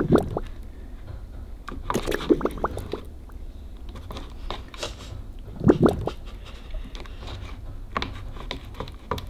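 Wooden craft stick stirring thick green psyllium-husk slime in a plastic cup, scraping against the cup's sides. It comes in irregular bouts of strokes, heaviest near the start and about six seconds in.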